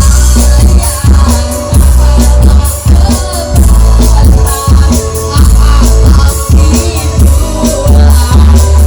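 Loud live band music over a sound system, with a heavy, steady bass beat and a melody line on top.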